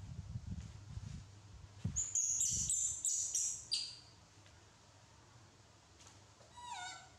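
High-pitched chirping animal calls: a loud run of chirps about two seconds in, then a short falling call near the end. Low rustling from handling runs under the first half.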